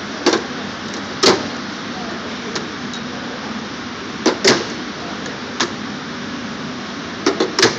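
Steel drawers of an SP roller tool cabinet being pulled open and pushed shut by hand, each one stopping with a sharp metal clunk: about eight clunks, two close together about four and a half seconds in and a quick run of three near the end, over a steady hiss.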